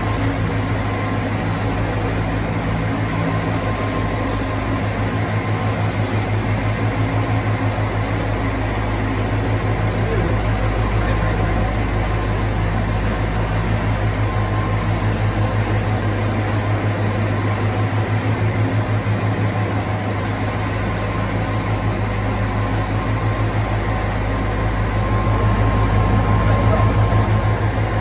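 Narrowboat's diesel engine running steadily under way, a constant low throb, heard inside a brick canal tunnel.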